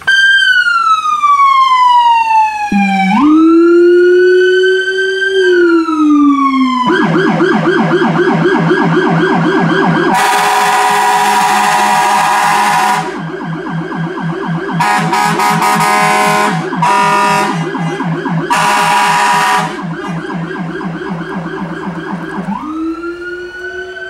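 Whelen electronic siren on a demo pickup with Howler low-frequency speakers, cycling through tones: a slow wail that falls, rises and falls again, with a deep low tone joining it about three seconds in. From about seven seconds it switches to a fast warble over the low tone, with air horns blasting four times over it, the first about three seconds long and the rest shorter. Near the end it goes back to a rising wail.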